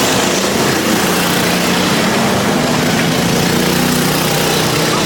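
Racing go-kart engines running steadily, their pitch drifting up and down a little.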